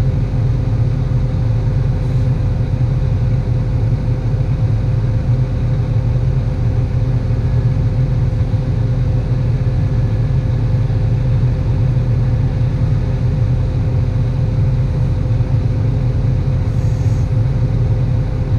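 Tractor engine running steadily under load, a constant low drone with a steady hum on top.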